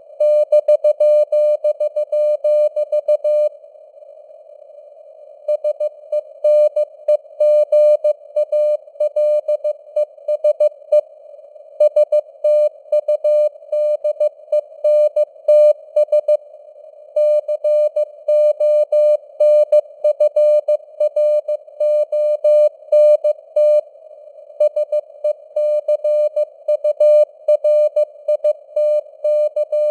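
Morse code (CW) sent at 15 words per minute: a single-pitch beep keyed on and off in dots and dashes over a narrow band of hiss, simulated radio noise. The keying breaks off for a second or two a few times.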